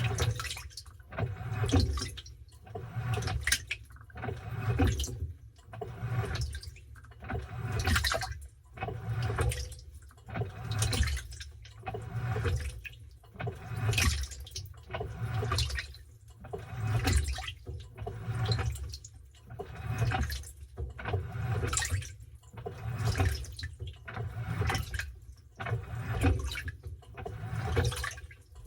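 Washing machine washing a load of towels, the water sloshing and churning in surges about once a second.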